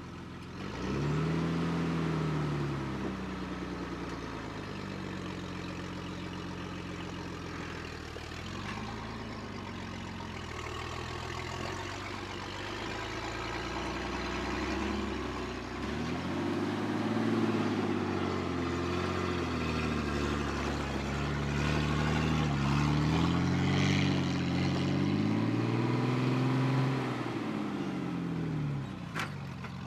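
A lifted 2003 Jeep TJ's engine working it up a rocky ledge, the revs rising and falling again and again. It pulls harder and louder through the second half.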